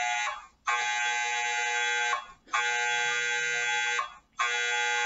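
Smartphone countdown-timer alarm ringing after the time has run out: a steady chord of held tones that sounds for about a second and a half, breaks off briefly and starts again, three times over.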